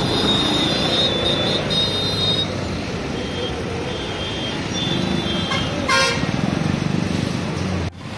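Busy street traffic: vehicle engines running with a steady road noise, and a vehicle horn honking briefly about six seconds in.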